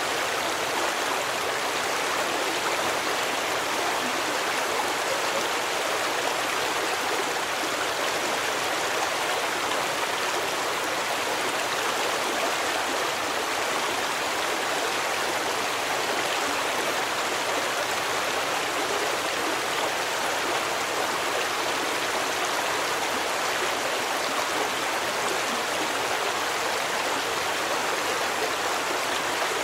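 Stream water running in a steady, even rush, with no rise or fall in level.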